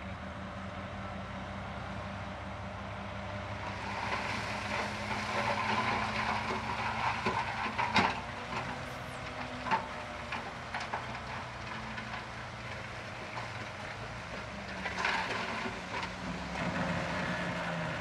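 Heavy earthmoving machine's diesel engine running steadily, with two spells of metallic clanking and rattling: one about four seconds in with sharp knocks around eight seconds, the other near the end.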